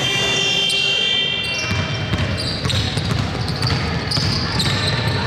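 A basketball bouncing on a hardwood gym floor, with shoes and players moving in a large echoing hall. A steady high multi-tone sound, like a buzzer, holds for about the first two seconds and then stops.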